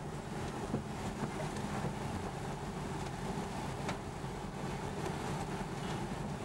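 Car driving on a rough, uneven road, heard from inside the cabin: steady engine and road noise with a few light knocks over the bumps.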